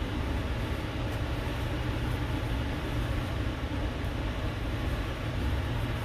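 Steady low rumble with an even hiss, unchanging throughout.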